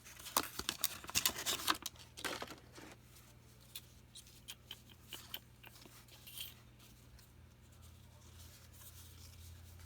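A trading card pack's wrapper being torn open and crinkled, a dense run of crackles in the first few seconds, then only occasional soft clicks as the cards are handled.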